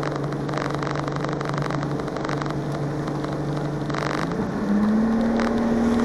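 Boat outboard motor running steadily under way, then throttled up about four seconds in: its pitch rises and it gets louder, then holds at the higher speed.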